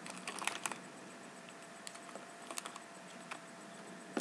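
Light plastic clicks and taps as plastic-sleeved stickers are handled and slotted into a clear plastic compartment case: a quick cluster at the start, then a few scattered single taps.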